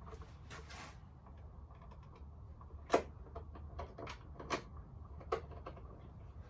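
Sparse small clicks and taps of 3.5 mm screws and a light-switch faceplate being handled and offered up to the back box. The sharpest click comes about three seconds in, with a brief rustle near the start.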